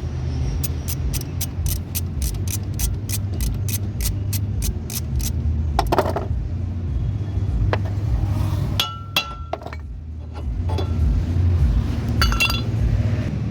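Ratchet wrench clicking quickly and evenly, about five clicks a second, while undoing a nut on the brake assembly. Then a few separate metallic clinks of tools and parts, one ringing briefly, over a steady low hum.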